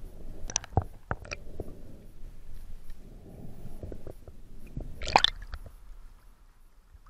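Muffled underwater knocks and clicks from the diver's gear and camera housing over a low rumble. About five seconds in comes a loud splashy burst as the camera breaks the lake surface, then only faint water sounds.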